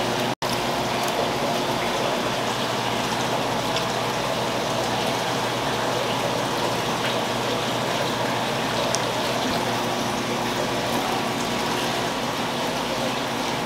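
Steady rush of running water over a low kitchen hum, broken by a split-second dropout about half a second in.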